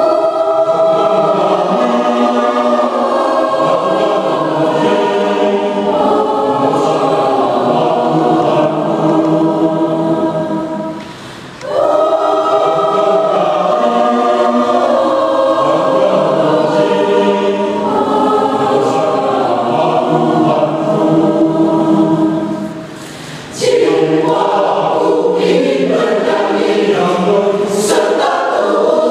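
Church choir singing in parts, without accompaniment, in long sustained phrases with two short breaths between them.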